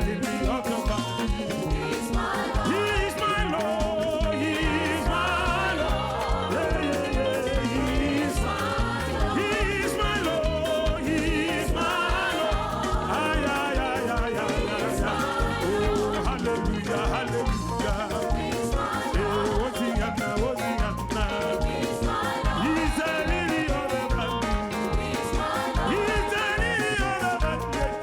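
Upbeat African gospel praise music with a steady dance beat and singing.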